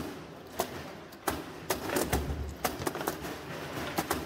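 Foosball match play on a CR Factory tournament table: sharp, irregular clacks as the ball is struck by the plastic men and rebounds off the table's walls, about ten in a few seconds.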